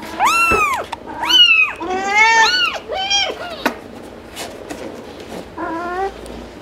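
Young kittens mewing: a quick run of high, arching cries, two of them overlapping about two seconds in, then after a lull one lower, wavering mew near the end.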